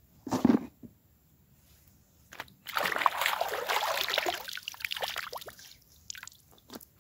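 A short splash or slap of wet cloth about half a second in, then about three seconds of splashing and trickling water as clothes are rinsed by hand in a pond.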